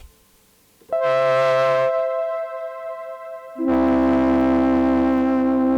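Hydrasynth synthesizer playing two held, brassy notes: a short one about a second in, then a lower one that sustains to the end. The synth is sounding after being reassembled.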